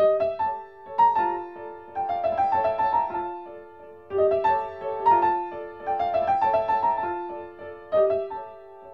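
Piano being played, coming in suddenly and loudly: a mid-register melody over chords, the same phrase coming round about every four seconds.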